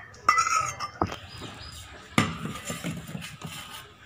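Kitchen utensils clinking against a dish while spices are added: a few sharp clinks and knocks with a short ring, about a second apart.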